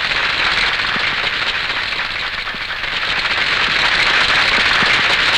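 Sustained applause from a chamber full of assembly members clapping, dense and steady, swelling slightly a few seconds in.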